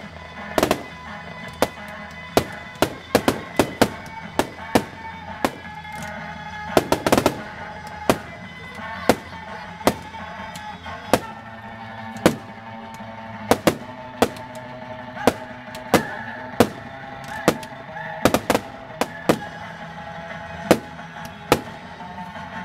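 Fireworks shells bursting in the sky, a long run of sharp bangs about one or two a second, with a quick cluster about seven seconds in. Music plays steadily underneath.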